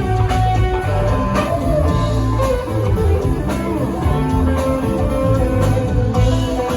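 Live rock band playing loudly, with electric guitar lead over bass and drums.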